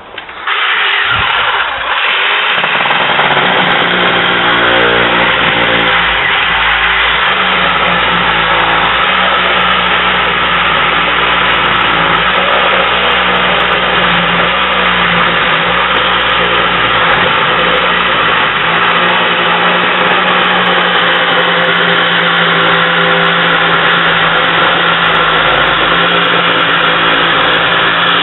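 Battery-powered Black & Decker saw starting up and cutting steadily through a plywood sheet. The motor runs at a constant speed throughout the cut.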